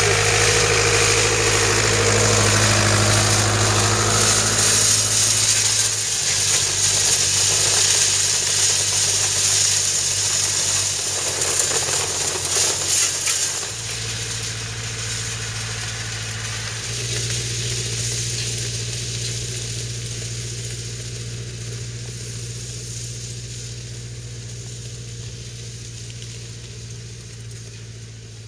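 A tractor engine runs steadily while pulling a Tonutti Raptor star-wheel hay rake, with the hiss and rattle of the rake working through hay close by for about the first half. After that the sound drops and the engine grows steadily fainter as the tractor works farther away across the field.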